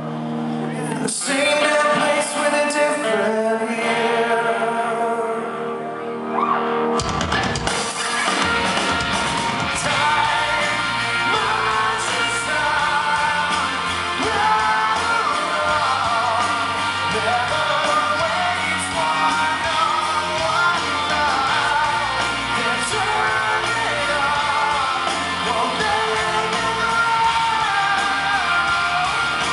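Live rock band with a male lead singer, recorded in a large hall. A sparser passage of held chords and voice gives way, about seven seconds in, to the full band with bass and drums.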